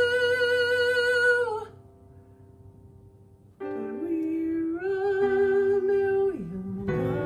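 A male voice holds a long sung note with vibrato over a backing track, cutting off about a second and a half in; after a short near-quiet gap the accompaniment comes back with sustained notes.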